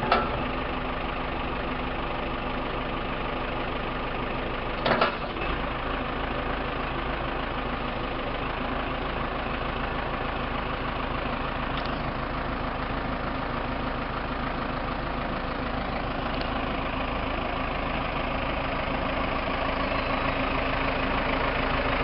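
2003 Case 580M backhoe loader's four-cylinder diesel engine idling steadily, with a brief clunk about five seconds in.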